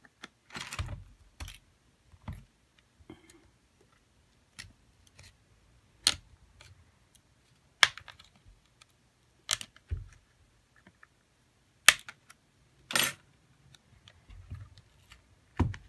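Plastic back cover of a Xiaomi Redmi 9 being pried off by hand: a series of sharp clicks and snaps, about ten, one every second or two, as its edge clips pop free, with brief rustling handling noise between some of them.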